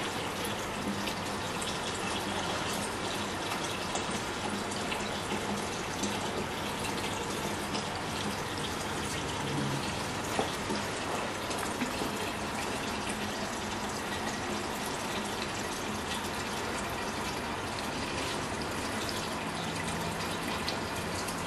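Diesel contaminated with water and sand draining from a fuel purifier's drain through a clear tube into a plastic bottle: a steady run of liquid filling the bottle.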